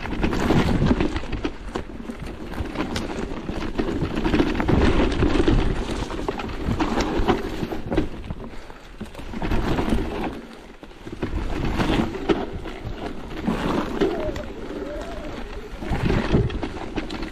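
Riding noise from a Merida eOne-Sixty electric mountain bike on a rough trail: wind buffeting the microphone over a low rumble, with tyres and frame clattering over the ground. The noise surges and eases every second or two.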